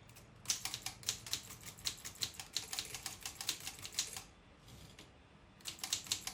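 Typewriter keys being struck in a quick, uneven run of sharp clacks, pausing for about a second and a half, then typing again near the end.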